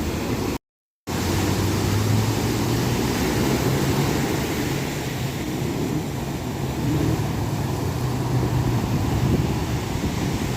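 Ocean surf washing and breaking on the shore as a steady roar, with a low engine hum, as of passing traffic, running under it from about a second and a half in. The audio cuts out completely for about half a second near the start.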